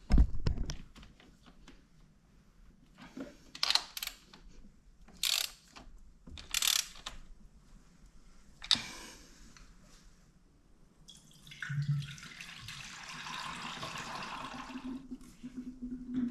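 Coolant being poured from a bottle into the coolant expansion tank: a steady pour of liquid lasting about three and a half seconds, after several short clicks and knocks of the cap and bottle being handled.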